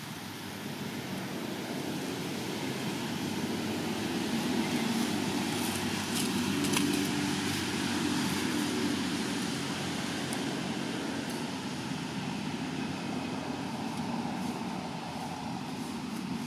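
A motor engine hums steadily, as of a vehicle running nearby. It grows louder over the first few seconds and eases off again toward the end, with a few faint clicks in the middle.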